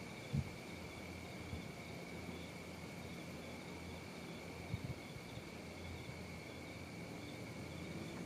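Crickets chirping in a steady, high, continuous trill, with a few soft low bumps and faint rustling.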